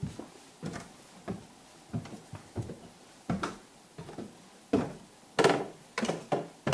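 Footsteps climbing wooden stair treads: a string of dull knocks about every two-thirds of a second, a few of them heavier near the end as the top is reached.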